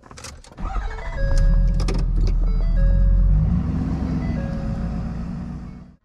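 Pickup truck driving on a dirt road, heard from inside the cab: the engine runs low and rises in pitch about four seconds in. Background music plays over it, and both fade out at the end.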